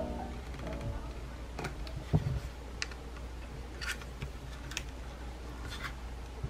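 Hard plastic clicks and knocks from a plastic phone holder being unfolded and handled, about half a dozen separate clicks with the loudest knock about two seconds in.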